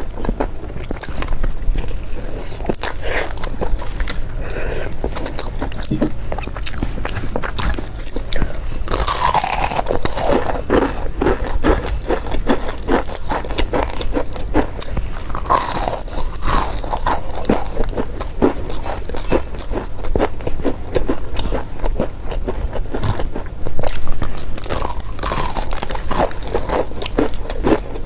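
Close-miked biting and chewing of crispy fried chicken: a steady run of crackly crunches, with a few louder bites along the way.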